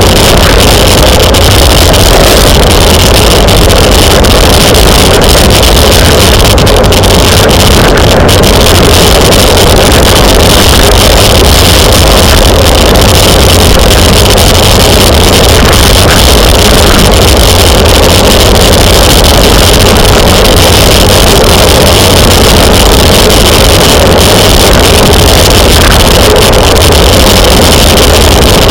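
Loud, steady wind roar on the microphone of a camera riding along on a bicycle at race speed, with no let-up.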